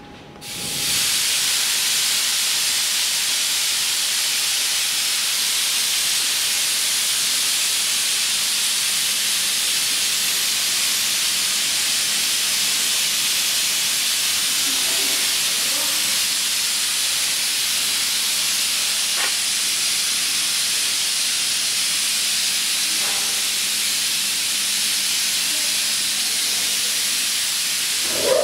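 CNC plasma cutting machine's torch hissing: a loud, steady hiss of the torch's air stream that comes on suddenly about half a second in and holds evenly throughout.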